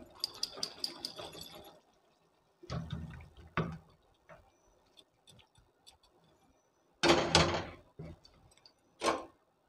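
A metal kadai and utensils clinking, knocking and scraping as curry is tipped and scraped out of the pan onto a ceramic plate. It starts with a quick run of clinks, then a few dull knocks, and the loudest sound is a short scrape about seven seconds in.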